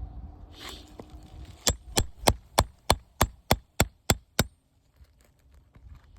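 About ten sharp, evenly spaced hammer taps, roughly three a second, starting about a second and a half in: a hammer driving a nail puller under a roofing nail to free it from a brittle asphalt shingle.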